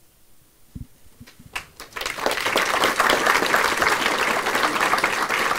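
Audience applauding: a few single claps about a second and a half in, swelling by two seconds into full, steady applause from a large hall crowd. A soft thump comes just before the first claps.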